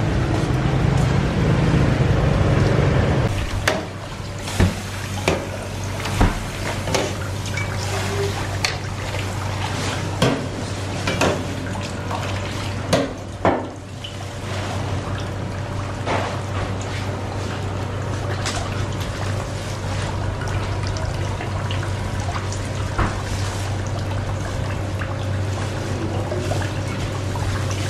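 Water running steadily from a tap into a steel bowl, over a low steady hum, with scattered sharp knocks and clatters from handling a live sturgeon in the first half. A louder, lower rumble fills the first three seconds before giving way to the running water.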